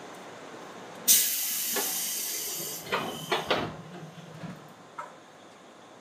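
Pneumatic sliding doors of a JR 205-series electric train closing. A sudden loud hiss of air lasts about two seconds, then three thuds as the door panels shut, and a small click about five seconds in.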